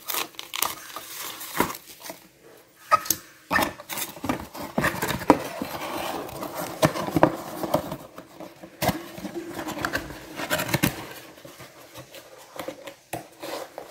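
Rustling and tearing of the thin foam wrap being pulled off a plastic HO scale well car, with light clicks and taps as the car is handled and set down on a desk. The sharpest taps come about three and five seconds in.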